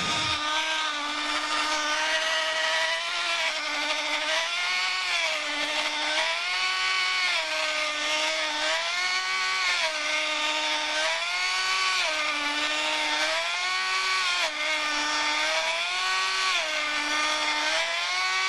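Mini portable six-blade blender's motor starting up just after the start and running with a steady whine, its pitch dipping and rising again about once a second.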